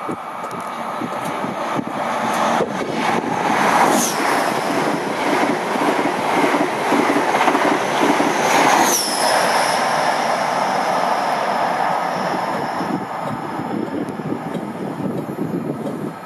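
Virgin Trains East Coast HST (InterCity 125 with Class 43 diesel power cars and Mark 3 coaches) passing through at speed. A loud rushing of wheels on rail builds as it approaches, with rhythmic clickety-clack and two brief high squeals falling in pitch about four and nine seconds in, then eases off as the coaches run past.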